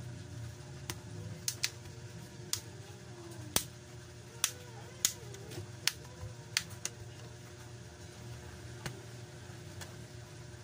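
Plastic back cover of a Samsung Galaxy A10s being pried off by hand, its clips snapping loose in a series of sharp, irregular clicks, about a dozen in all.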